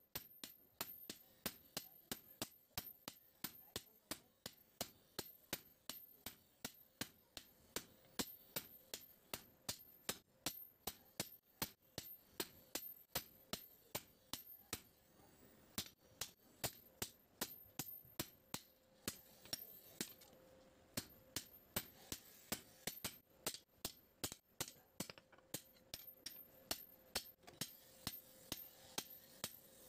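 Hand hammer striking a red-hot spring-steel cleaver blank on an anvil, about three sharp blows a second, each with a short metallic ring. There is a brief pause about halfway through before the hammering resumes.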